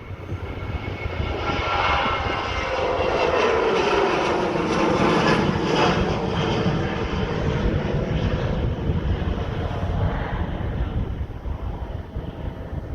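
Boeing 737-800's CFM56 jet engines at takeoff power as the airliner rolls or climbs past. The sound swells over the first couple of seconds and peaks in the middle, with a tone that falls in pitch as it goes by, then slowly fades.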